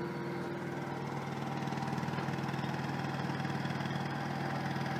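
Mini excavator's small diesel engine running steadily at a low idle, with an even, fast-pulsing hum.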